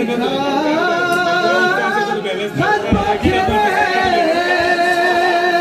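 Unaccompanied male singing of a Balti qasida, a devotional poem chanted in long, slowly bending melodic lines. A few dull thumps sound about halfway through.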